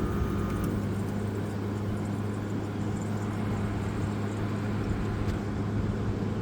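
Haier QTPC05AAQ1 5,050 BTU window air conditioner running in cooling mode: a steady low hum from the compressor under the even rush of air from its fan.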